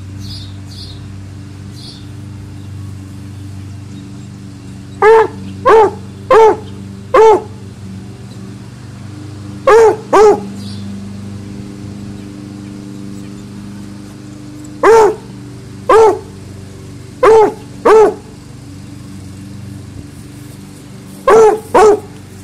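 Dog barking in short, loud barks in four clusters: four barks, two, four, then two. A steady low hum runs underneath.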